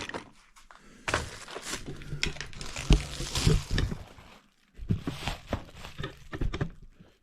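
Small items being handled and shuffled around in a tool-cart drawer: rustling with irregular knocks and clatters, pausing briefly midway.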